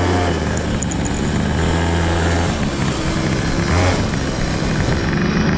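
Small vehicle engine running at a steady low drone while moving, with wind rushing over the microphone; the drone drops away for about a second midway, then returns.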